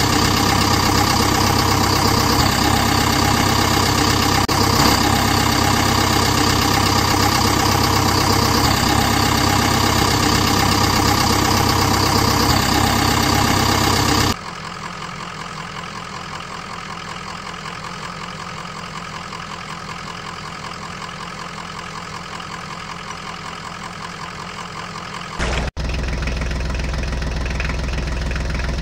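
Steady engine idling with an even, unchanging pitch. It drops suddenly to a quieter level about halfway through, then comes back louder after a brief break near the end.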